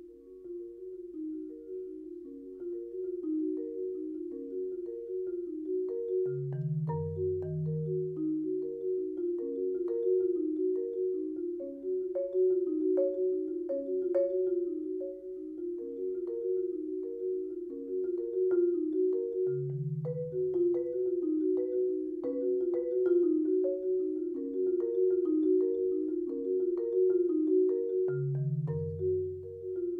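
Concert marimba played with yarn mallets: a fast, even stream of repeated notes in the middle register, growing louder over the first ten seconds. Deep bass notes ring out underneath three times, about six seconds in, near twenty seconds and near the end.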